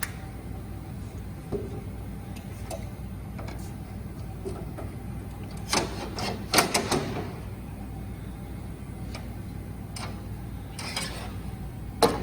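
Scattered metallic clicks and knocks of machine parts being handled and taken off, the loudest cluster about six to seven seconds in and another near the end, over a steady low hum.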